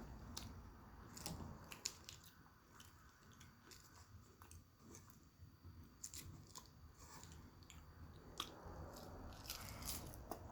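Close-miked eating sounds: a person chewing and biting food, with soft irregular mouth clicks and small crunches.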